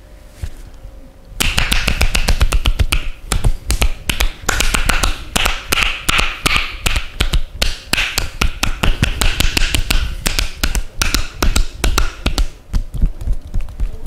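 Percussive massage on the knee and thigh: the masseur's hands slap the leg in a fast, steady run of sharp taps, several a second. It starts about a second and a half in and stops shortly before the end.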